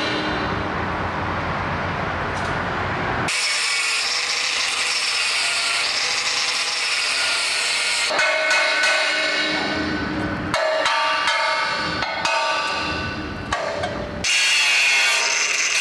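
Sawing and grinding on stone, in short sections that change abruptly several times.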